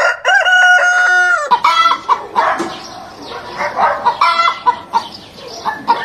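A rooster crowing: one long cock-a-doodle-doo lasting about a second and a half, followed by shorter calls.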